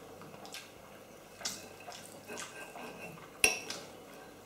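Knife and fork scraping and clinking on a plate while cutting a sausage, with a sharp clink of metal on the plate about three and a half seconds in.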